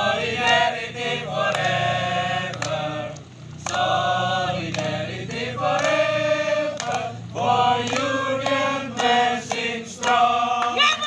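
Many voices singing a melody together in phrases, over a steady low hum.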